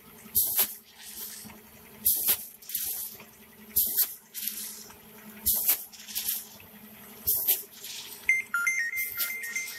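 Automatic snack pouch packing machine cycling at about one pouch every 1.7 seconds, each cycle a short sharp hiss of air over a steady motor hum. A beeping electronic tune starts near the end.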